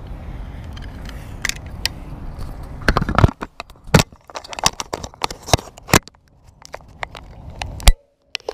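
A bicycle being handled at its rear wheel and chain: a low rumble for the first few seconds, then irregular clicks, rattles and knocks of metal parts.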